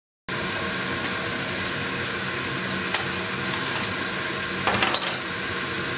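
Steady fan-and-pump whir of a 60-watt Omtech CO2 laser engraver's ventilation system running, with a low hum. It cuts in just after the start, and a couple of light clicks and a short rushing burst come past the middle.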